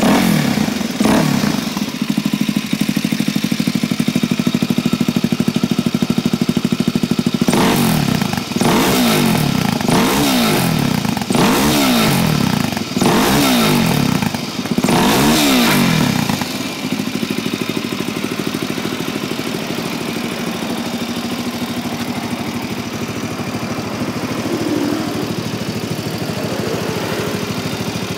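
Suzuki DR-Z400SM's single-cylinder four-stroke engine running through a Yoshimura slip-on muffler: it idles steadily, is blipped a couple of times near the start, then is revved in about five short throttle blips around the middle before settling back to idle.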